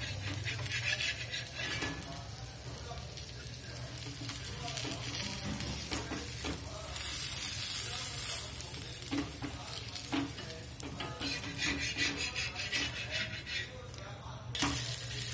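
A crisp, ghee-fried dosa sizzling on a hot dosa tawa while a steel spatula scrapes under it and folds it over, with repeated scraping clicks. The sizzle drops away near the end as the folded dosa is lifted off the pan.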